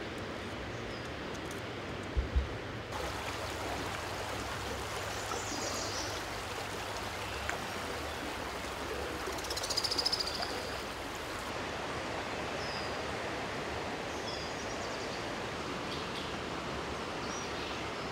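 Floodwater of the high-running Boise River rushing, a steady hiss of moving water. Two brief low thumps come about two seconds in, and a few short high chirps are heard here and there, most around the middle.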